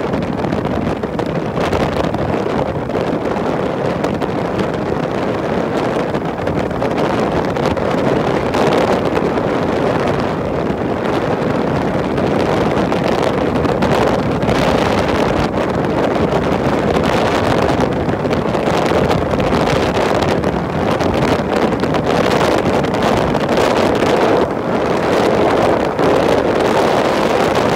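Steady wind rushing over the microphone together with a continuous engine drone and road noise from a motorbike in motion.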